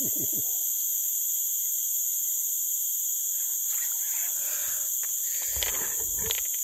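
A steady, high-pitched chorus of forest insects, with water splashing as a small hooked fish thrashes at the surface. A few knocks and thuds near the end come from handling the fish.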